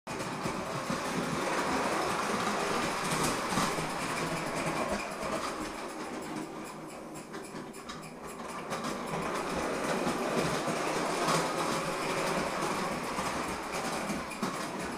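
Bowman 234 live-steam gauge O locomotive running round a tinplate track, its wheels clattering over the rail joints amid a steady hiss. It grows a little quieter in the middle and then louder again.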